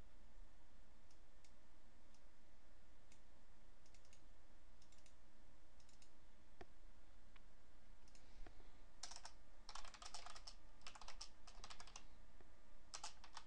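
A few faint clicks, then from about nine seconds in a quick run of typing on a computer keyboard, with a few more keystrokes near the end, over a steady low hum.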